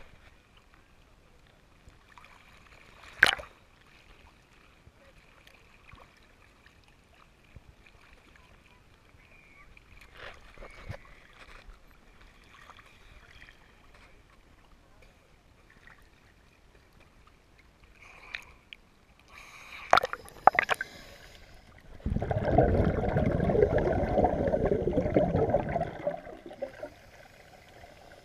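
Water sloshing and splashing against a camera held at the waterline among scuba divers, with a few sharp knocks. Near the end comes about four seconds of loud bubbling and rushing as the divers go under.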